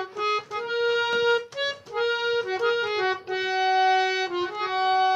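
Harmonium played solo: a melody of reedy notes, some short and quick, one held for about a second near the middle.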